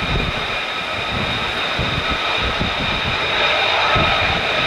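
F-35A Lightning II's Pratt & Whitney F135 jet engine running on the ground with a steady, high multi-tone whine over an uneven low rumble.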